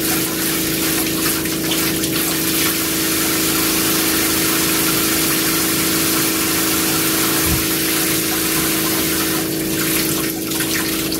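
Water spraying steadily from a handheld shower head into the shower tray, over the constant hum of the boat's fresh-water pressure pump, a Jabsco Par Max 3, running while the hot tap is open.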